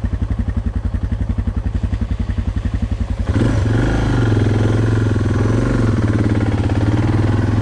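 Suzuki DR650's single-cylinder four-stroke engine idling with an even, quick thump, then, from about three seconds in, running under way with its note rising and falling as the bike is ridden.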